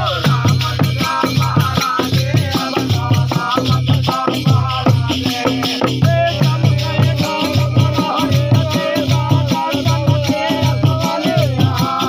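A group of men singing a folk song together, accompanied by two-headed rope-tensioned barrel drums (dholak) beaten at about two strokes a second and a hand-held wooden instrument whose metal jingles shake in a constant rattle.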